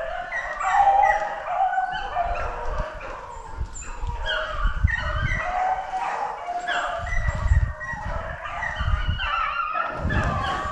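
A pack of beagles baying on a rabbit's trail: many short, overlapping hound cries from several dogs at once, keeping up throughout, with an intermittent low rumble underneath.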